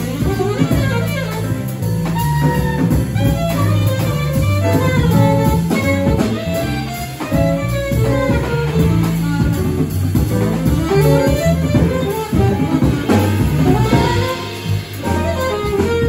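Jazz quartet playing live: saxophone carrying a moving melodic line over piano, plucked upright bass and drum kit.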